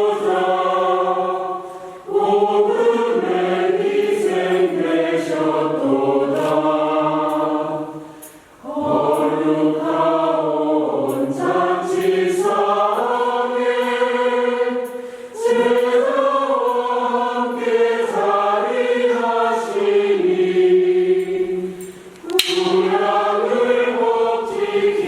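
Church choir singing a slow hymn in long phrases, with short breaks between phrases about every six to seven seconds.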